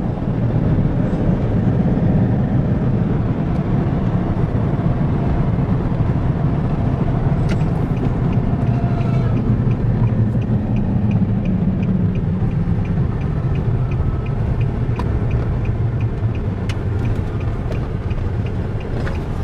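Steady low rumble of a car's engine and tyres on the road, heard from inside the cab while driving. About halfway through, a light, regular ticking starts, about two ticks a second, and runs on to near the end.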